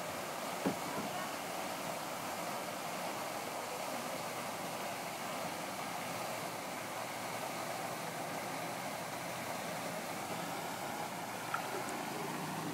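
Steady hiss of a pond fountain's tall water jet falling back onto the water, with a brief click about a second in and another near the end.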